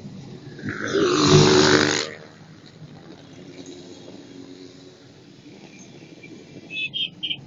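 Motorcycles riding past one after another. About a second in, one passes close and loud, its engine swelling and fading within about a second, then quieter engines keep running as others go by.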